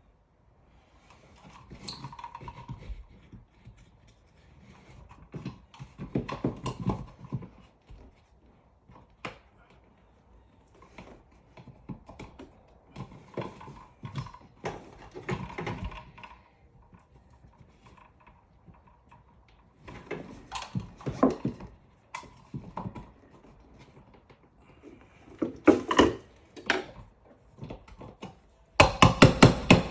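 Irregular bursts of knocking, clicking and scraping from hand work on an electrical outlet box in a wall, with short pauses between, and a quick run of knocks near the end.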